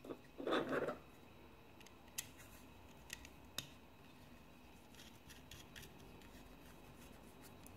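Faint handling sounds of a stick antenna being fitted onto a small FPV video receiver: a short rustle about half a second in, then a few sharp, sparse clicks and taps of plastic and metal.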